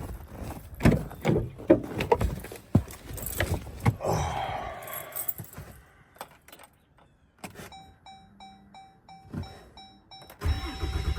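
Keys jangling and clicks as the truck is got into, then a dashboard warning chime beeping about three to four times a second. Near the end the truck's engine cranks and starts on a cold morning of about 11 degrees.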